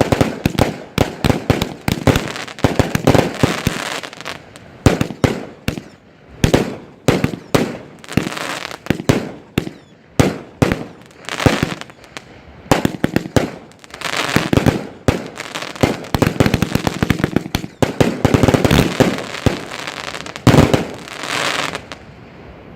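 Consumer firework cakes firing a rapid barrage of sharp bangs and bursts, the shots coming several a second and stopping about 22 seconds in, near the end.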